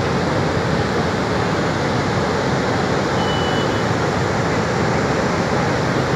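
Floodwater pouring through the open crest gates of the full Bhadra dam's spillway and crashing into the river below: a loud, steady rushing.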